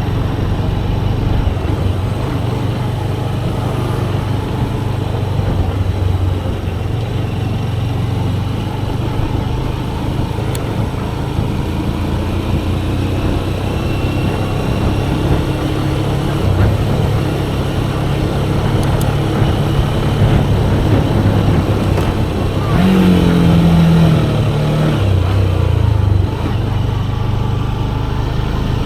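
Motorcycle engine running steadily while riding, with road and wind noise. About three-quarters of the way through the engine note rises for a couple of seconds, then drops back.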